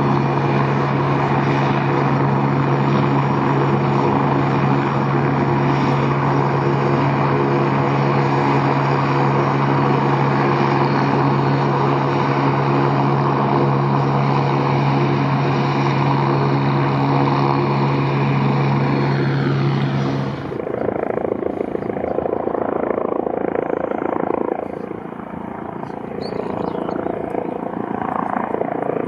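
Aircraft running steadily with a strong low hum and a constant engine tone. About two-thirds of the way through it cuts off abruptly, and a rougher, wavering aircraft rumble follows.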